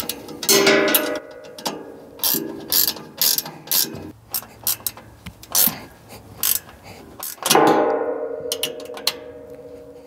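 Ratcheting wrench clicking in quick runs as bolts are run in and tightened.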